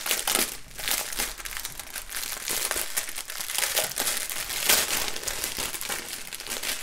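Clear plastic bag crinkling continuously as hands handle and open it to get at the small bags of diamond painting drills inside.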